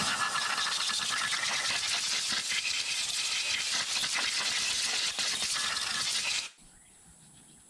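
Compressed-air blow gun hissing steadily as it blows dirt off the drive unit's electrical terminals, cutting off suddenly about six and a half seconds in.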